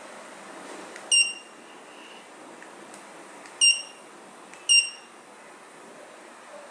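Quanum telemetry voltage monitor's buzzer giving three short high-pitched beeps: one about a second in, then two more about a second apart near the middle.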